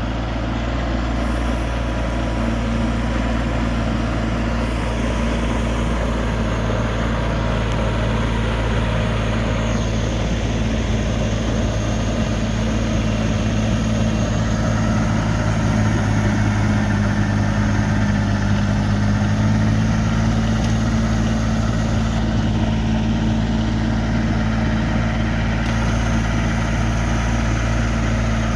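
Snowblower engine running steadily at working revs, a little louder through the middle stretch.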